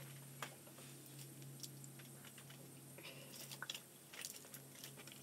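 Faint, scattered wet clicks and squishes of a lump of toy slime being squeezed and pulled in the hands, busiest a few seconds in, over a steady low hum.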